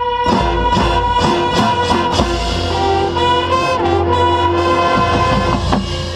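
Marching band playing: brass holds sustained chords over repeated drum and percussion hits. The hits stop near the end and the music eases off.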